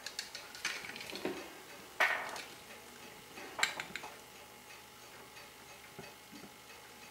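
Light, irregular clicks and clinks of small metal watchmaking tools and parts being handled around a watch movement holder and parts tray, the loudest about two seconds in and a pair near four seconds, fading to a few faint ticks.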